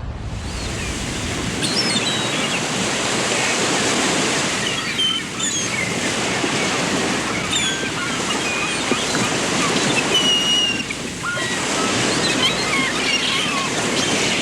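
Many small birds chirping in short, high, quick notes over a steady rushing noise like surf or running water.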